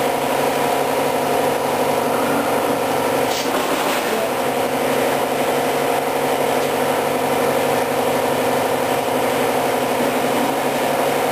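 Air compressor running, a steady hum made of several constant tones.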